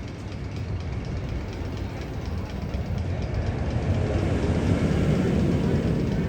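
Magnum XL 200 roller coaster train rumbling along its track, growing louder to a peak about five seconds in and then easing off.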